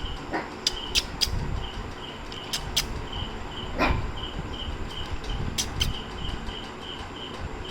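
A cricket chirping steadily, about three chirps a second. It is broken by a few sharp clicks and a brief puppy whimper about four seconds in.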